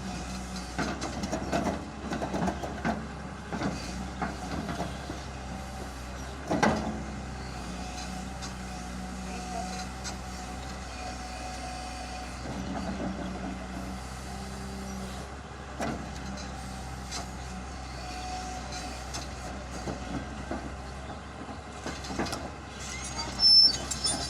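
Excavator's diesel engine running steadily under work, with scattered metallic clanks and knocks, a sharp one about six and a half seconds in and a loud burst near the end.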